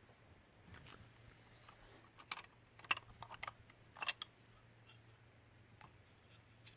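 Scattered small clicks and taps of plastic parts being handled as the side panels of a toy John Deere 323D skid steer are tried on, most of them between about two and four seconds in. A faint low hum lies beneath.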